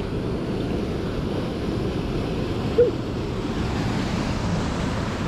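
Steady rush of a waterfall and creek water. A brief squeak about three seconds in.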